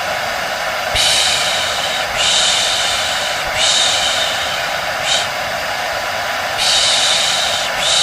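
Rhythmic shushing, a drawn-out "shh" repeated about every second and a bit, some of them shorter, over the steady whoosh of a hair dryer running continuously. This is white-noise sound used to soothe a baby to sleep.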